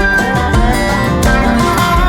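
Background music: upbeat acoustic guitar track with a steady beat.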